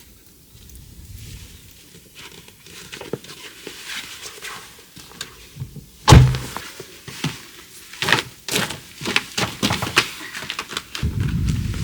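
A heavy thunk about six seconds in, followed by a run of sharp knocks and clicks, as of hard objects being handled and set down.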